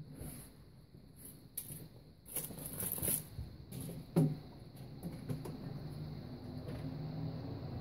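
Rustling, clicks and knocks as a rider handles a Yamaha YZ450F dirt bike and climbs onto it, with one sharper knock about four seconds in. The engine is not yet running.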